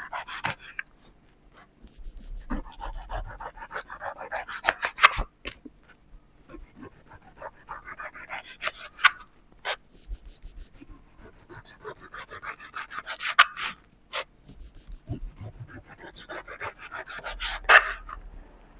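Knife sawing through a pineapple's rough rind in quick rasping strokes, each cut ending in a sharp crunch. This happens four times, about every four seconds.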